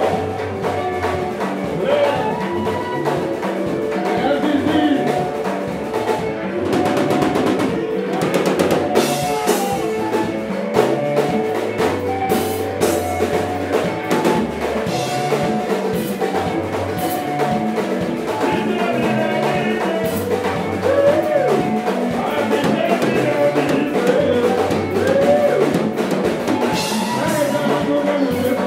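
A live band playing dance music: electric guitar lines over bass and a drum kit.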